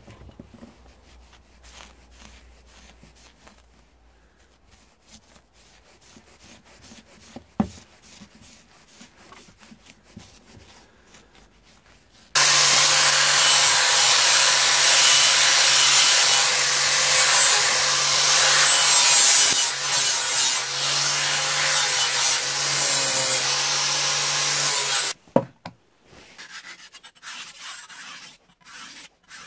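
Faint scraping, then an angle grinder switches on suddenly about twelve seconds in, runs steadily against a steel bar for about thirteen seconds and cuts off. Near the end, a machete blade is drawn in rhythmic strokes across a whetstone.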